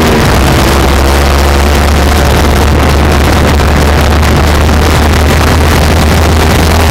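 Exhaust note of a Kawasaki Ninja 250/300 parallel-twin engine through a loud aftermarket Yoshimura carbon slip-on silencer, heard right beside the muffler as the bike rides along. Steady and loud throughout.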